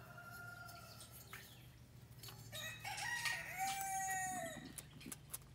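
A rooster crowing: one long held crow about halfway through, over a low steady hum, with a few light clicks near the end.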